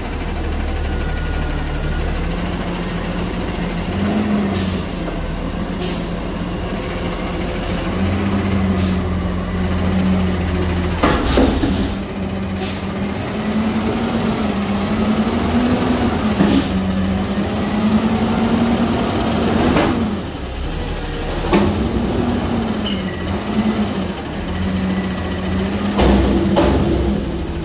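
Heil front-load garbage truck's engine running and repeatedly revving up and settling back as it drives the lift-arm hydraulics. Several sharp bangs from the arms and container come through it.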